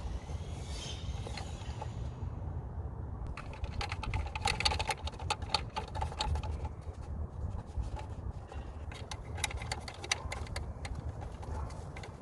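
Irregular small clicks and taps of 10 mm screws being threaded by hand into the ignition coil cover on top of the engine, over a steady low rumble; the clicks grow busier about three seconds in.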